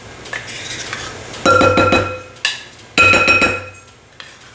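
Metal measuring cup knocked against the rim of a glass mixing bowl to shake out the sour cream: two quick runs of rapid taps with a ringing tone, about a second and a half in and again at about three seconds.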